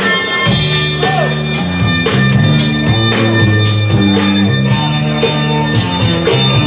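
Music for the battle: a track with a stepping bass line and a steady drum beat of about two hits a second, coming in about half a second in.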